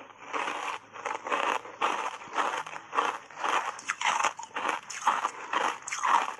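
Close-miked crunching of ice chunks coated in matcha powder being chewed, in quick repeated crunches about two a second.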